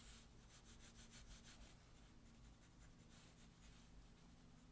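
Faint scratching of a colored pencil drawn in quick, short strokes across newsprint paper.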